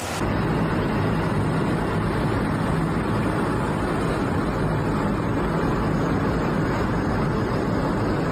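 Steady low roar of a floodwater torrent, a swollen river rushing past at full spate.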